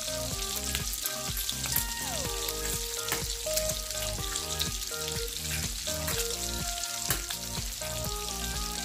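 Bacon sizzling and crackling steadily in a cast-iron skillet, with background music carrying a regular beat over it.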